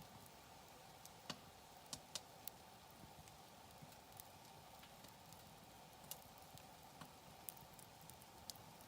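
Wood campfire crackling softly, with sharp pops scattered about once a second over a faint steady hiss.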